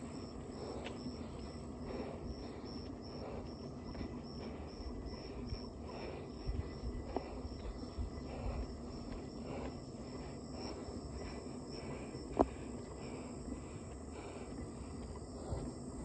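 An insect, cricket-like, chirping in a steady high pulse about twice a second, over soft irregular footsteps on a dirt road. One sharp click about twelve seconds in.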